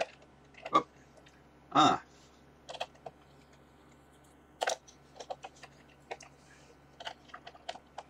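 Scattered small clicks and taps of oscilloscope probes and their hook clips being handled and attached to the terminals of an electronics project kit. The loudest comes about two seconds in.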